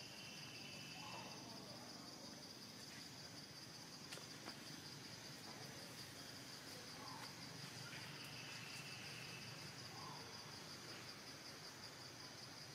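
Faint, steady high-pitched insect trilling with a fine even pulse, and a few short faint chirps every few seconds.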